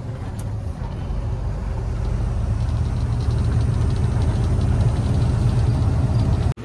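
Heavy diesel truck's engine and road noise heard inside the cab while cruising on a highway: a steady low drone that grows a little louder over the first few seconds.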